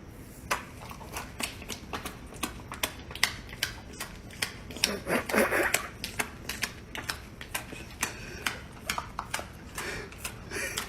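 Rapid, irregular tapping and clicking, several taps a second, with a short voice-like sound about five seconds in.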